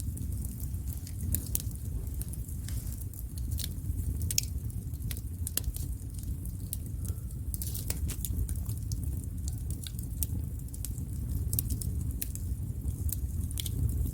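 Wood fire burning: irregular sharp crackles and pops from the burning wood over a low steady rumble.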